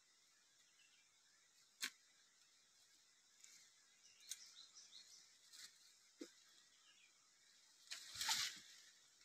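Footsteps through leaf litter and forest undergrowth: a sharp twig snap about two seconds in, scattered soft crunches, and a louder rustle of brushed vegetation near the end.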